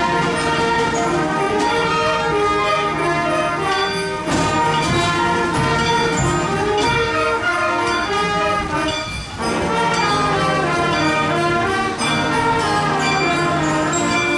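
Music led by brass instruments, a run of sustained notes that changes pitch throughout, briefly dipping a little past the middle.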